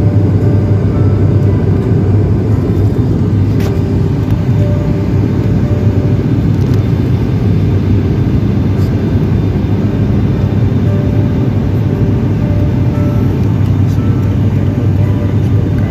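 Steady low rumble of an airliner heard inside the passenger cabin: engine and airflow noise, unchanging throughout.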